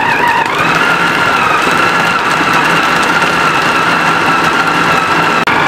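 Electric food processor motor running with a steady whine as it chops raw chicken breast and thigh meat into mince. The pitch rises slightly about half a second in, then near the end the motor cuts out for an instant and resumes at a lower pitch.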